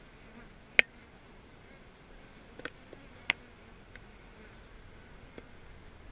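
Honey bees buzzing up close at the entrance of a wooden hive newly occupied by a swarm, with a few sharp clicks, the loudest about a second in and another about three seconds in.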